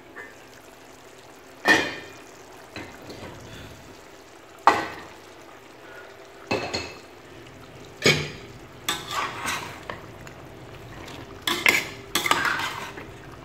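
Stainless-steel pot and lid clanking in a few separate sharp knocks as potato chunks go into a pot of meat curry, then a spoon stirring and scraping against the pot in a quicker run of clatter near the end.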